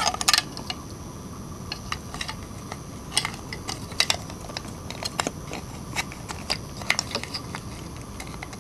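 Small irregular plastic clicks and taps from the two halves of a mobile phone charger's plastic housing being handled and fitted back together, over a steady faint hiss.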